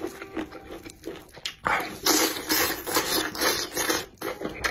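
Close-miked wet chewing and sucking of saucy spicy-and-sour chicken feet, with small mouth clicks. A louder, hissing slurp or chew starts partway in and lasts about two seconds.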